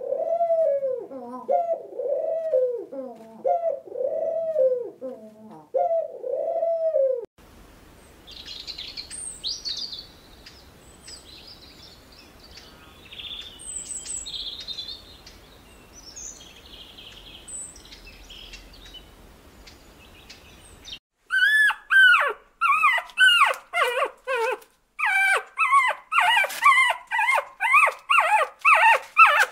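Animal calls from three spliced recordings. First comes a run of loud, short arching calls, rising then falling in pitch. Next is faint small-bird chirping, and from about two-thirds of the way in a rapid series of high-pitched yelps and whimpers, typical of puppies.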